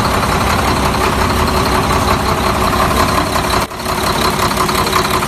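Heavy dump truck's diesel engine idling steadily with a fast, even rhythm; the sound dips briefly just before four seconds in.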